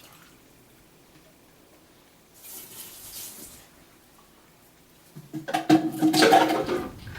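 Liquid poured from a bottle into a washing machine drum. A brief splash comes about two and a half seconds in, then a louder glugging, splashing pour in the last two seconds. The liquid is most likely the 92% alcohol just measured out as a cleaning agent.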